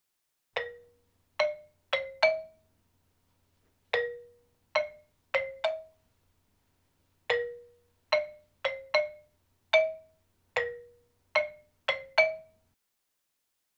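Title music: a simple melody of single struck mallet-percussion notes, marimba-like, played in groups of four or five. Each note dies away quickly, and the tune stops a second before the end.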